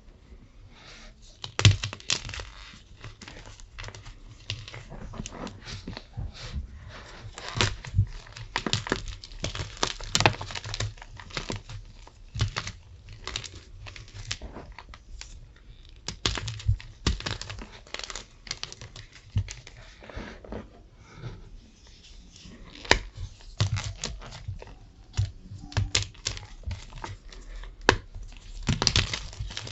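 Tie-dyed gym chalk blocks being crunched, giving a dense, uneven run of dry crunches and crackles.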